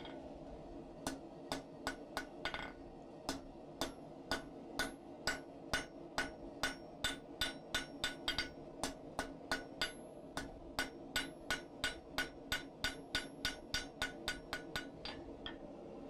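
Hand hammer striking a red-hot 3/8-inch steel round bar on an anvil face, drawing the end out into a short blunt taper and wedge. A steady run of sharp ringing blows, about two to three a second and quickening toward the end, over a steady low hum.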